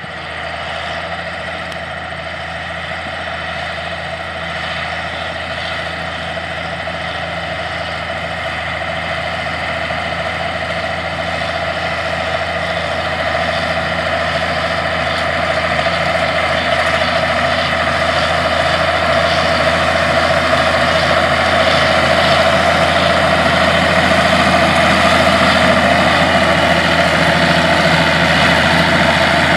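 Allis-Chalmers 200 tractor's six-cylinder diesel engine running steadily under load as it pulls a tandem disc harrow through the field, growing gradually louder as the tractor comes closer.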